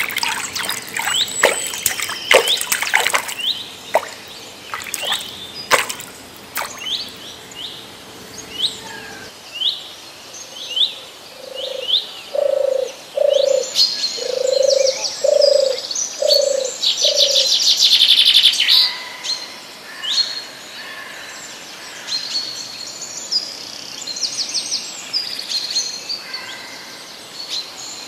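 Wild birds chirping with many short, repeated rising notes, one bird giving a series of about seven low hooting notes in the middle, and a fast high trill just after them. Several sharp clicks sound in the first few seconds.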